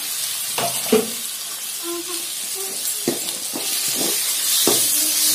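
Chopped tomatoes and onions sizzling in hot oil in a steel kadai, stirred with a perforated metal spatula that scrapes and knocks against the pan a few times.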